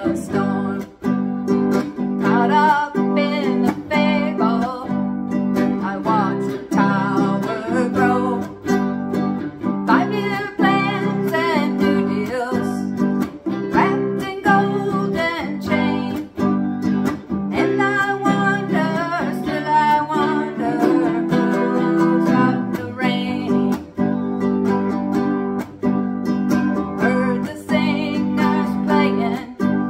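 Ukulele strummed in a steady rhythm together with an amplified electric guitar, with a woman singing the melody over them.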